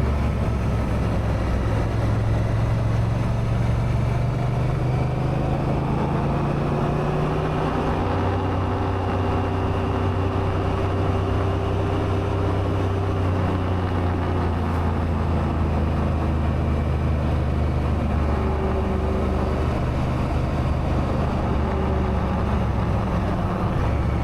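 Honda Africa Twin's parallel-twin engine running steadily under way, its note easing slightly up and down now and then.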